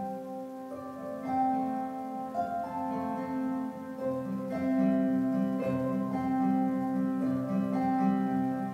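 Live acoustic instrumental music of harp, acoustic guitar and cello: plucked notes changing about once a second over a steady low held note.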